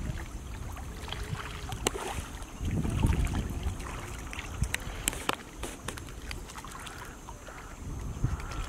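Water sloshing and splashing with scattered sharp clicks and knocks, and a low rumble of wind on the microphone about three seconds in.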